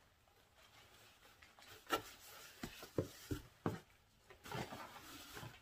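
Denim clothes being handled and unfolded over an open cardboard box: a few short rustles and soft taps, scattered from about two seconds in.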